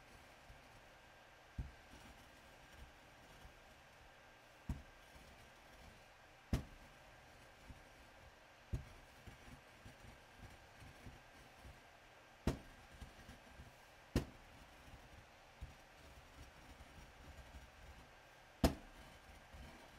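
Irregular sharp knocks of a rounded white hand tool striking a glass slab while it works a yellow powder, about seven taps a couple of seconds apart, with faint gritty crackles between them.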